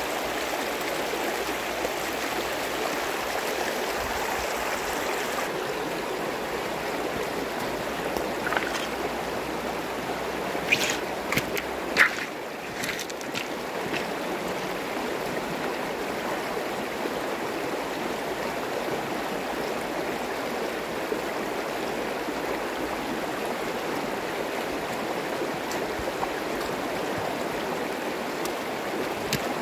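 Shallow rocky stream running over stones, an even steady rush of water. Around the middle come a few short, sharp splashes, likely from rubber boots stepping through the water.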